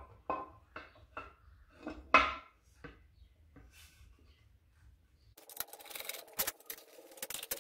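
The top engine cover of a BMW R100 boxer engine being pressed and rubbed into place by hand, a few separate knocks and scrapes. From about five seconds in, a rapid run of clicks and scraping as the cover's bolt is driven in with a socket screwdriver.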